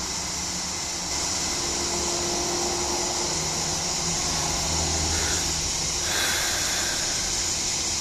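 Cicada chorus: a steady, shrill, high-pitched drone that fills the air, shifting slightly about six seconds in.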